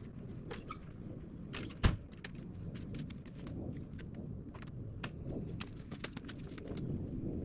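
Jumper cables being hooked up: scattered clicks and rattles of the clamps and cables, with one loud knock about two seconds in.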